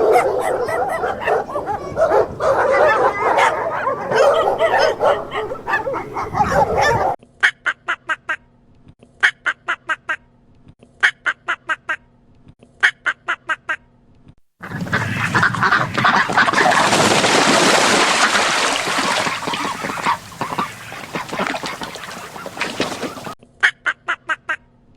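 Ducks quacking: runs of short, evenly spaced quacks in quick groups, alternating with stretches of a dense flock chorus of many birds calling at once.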